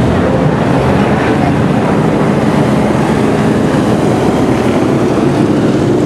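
Street stock race cars' engines running hard as they pass along the straight: a loud, steady engine noise with no breaks.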